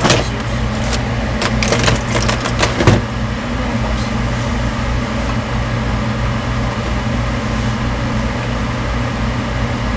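Steady low mechanical hum, with a quick run of small clicks and knocks in the first three seconds, the sharpest about three seconds in.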